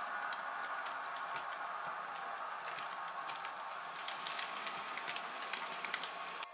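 Model train running along the layout track: a steady motor whir with irregular light clicks of its wheels on the rails.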